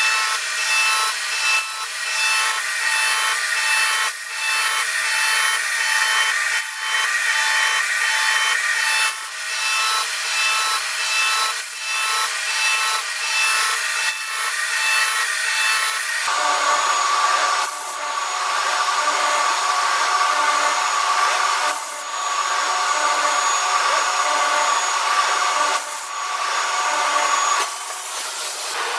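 Machine tool cutting or grinding metal: a steady rasping, sawing noise with several whining tones, changing abruptly to a different cutting sound about sixteen seconds in.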